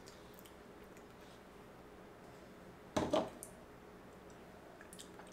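Quiet room tone with a few faint small clicks, broken about three seconds in by one short knock and clatter as a pint tub of ice cream is set down on a granite countertop.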